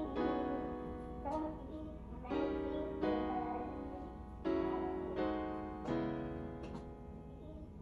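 Background piano music: slow, sustained chords, a new one struck every second or two.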